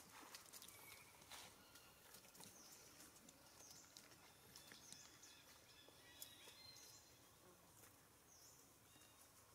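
Very quiet forest-floor ambience: faint scattered rustles and clicks in dry leaf litter as long-tailed macaques move about, most in the first second or so, with faint high chirps repeating every second or so.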